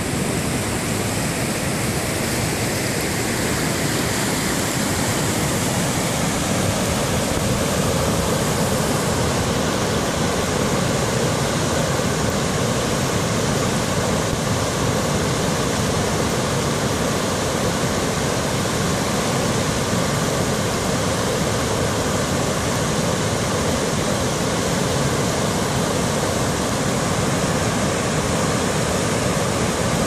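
A mountain river in spate pouring over a rock ledge as a waterfall of white water: loud, steady rushing water.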